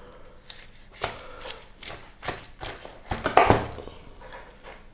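Large kitchen knife carving through the crisp roasted skin and breast meat of a whole roast chicken on a wooden cutting board. It makes a series of short crackling cuts and knocks about every half second, the loudest about three and a half seconds in.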